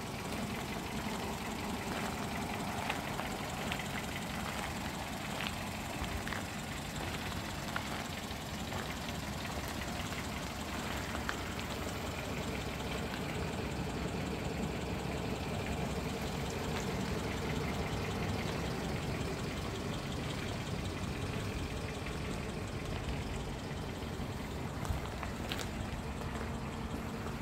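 Renault Clio hatchback's engine idling steadily, heard from outside the car.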